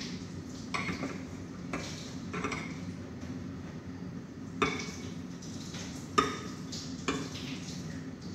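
Kitchen dishes and utensils being handled: a series of irregular sharp clinks and knocks, the loudest about four and a half and six seconds in, over a steady low hum.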